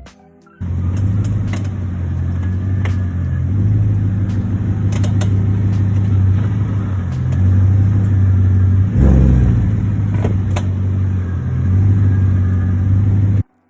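Car running loudly with a steady low engine drone that shifts slightly in pitch, and a few sharp clicks over it. It starts abruptly about half a second in and cuts off just before the end.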